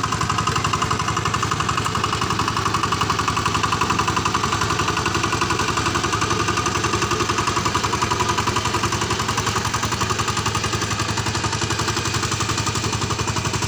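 VST 130 DI power tiller's single-cylinder diesel engine running steadily with a fast, even chugging as the tiller works through wet paddy mud.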